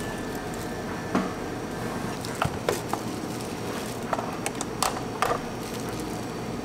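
Light, sharp plastic clicks and taps of drink preparation, as a scoop and plastic containers knock against a clear blender jar and are set down on the counter, over a steady room hum. The taps come irregularly, bunched between about one and five and a half seconds in.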